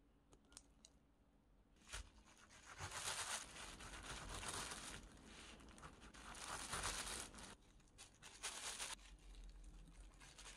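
A kitchen knife cuts through a grapefruit lying on a plastic bag, which crinkles and rustles, in soft waves of rustling and cutting noise. A few light clicks of the knife against a plate come first.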